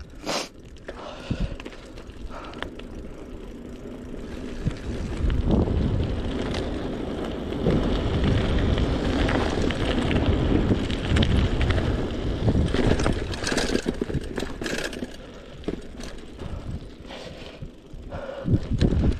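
Mountain bike riding over a loose gravel track: tyres crunching on stones and the bike rattling over the rough surface, getting louder and rougher about five seconds in, with a couple of sharp clatters a few seconds before the end.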